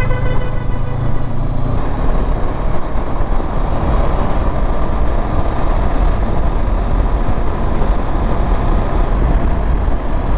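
Wind rushing over a helmet-mounted microphone, with the Honda CB500X's parallel-twin engine and road noise underneath. The bike accelerates to about 100 km/h in top gear, and the rush of wind builds after about two seconds. A vehicle horn note cuts off about half a second in.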